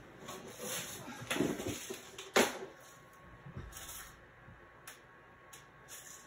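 Handling and rummaging noises as someone reaches off to the side for jump rings: rustling, one sharp knock a little over two seconds in, then a few faint clicks.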